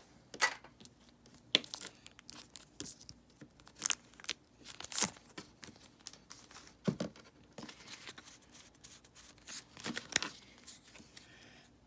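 Pokémon card booster pack being torn open, its foil wrapper crinkling, with the cards handled: a string of short, irregular rips and crackles.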